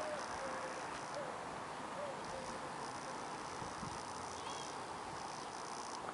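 Quiet outdoor background: a steady hiss with a few faint, short bird chirps.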